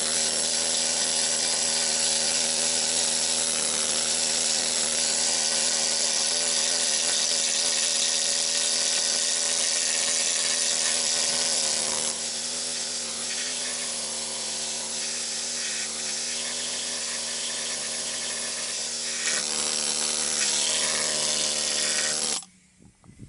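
Central Pneumatic mini air needle scaler running steadily, its needles hammering flaky rust scale off a steel Jeep TJ frame. It gets a little quieter about halfway through, louder again near the end, then cuts off suddenly.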